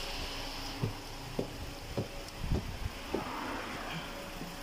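Footsteps on tiled steps and floor: a series of soft thuds, roughly two a second, over a steady background noise.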